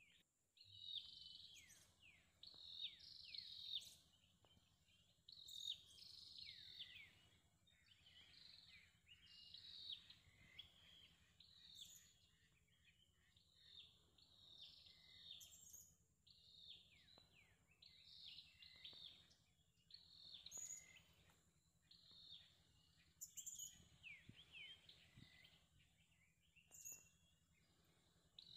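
Faint wild bird calls: short notes falling in pitch, repeated in clusters every second or two.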